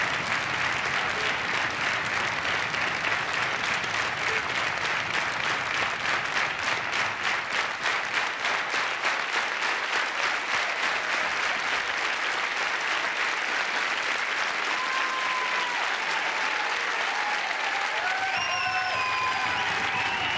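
A large theatre audience applauding a curtain call, the clapping falling briefly into a rhythmic beat around the middle.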